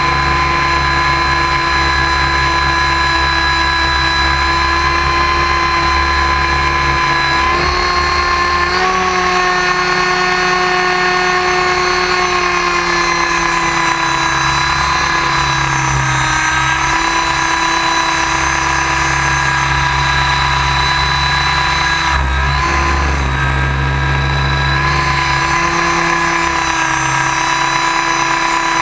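Align T-Rex 700 RC helicopter in 3D flight, heard from a camera mounted on its frame: a loud, steady high whine from the drivetrain over a low rushing of rotor air. The whine's pitch shifts slightly about eight seconds in and again midway as the head speed changes with the manoeuvres.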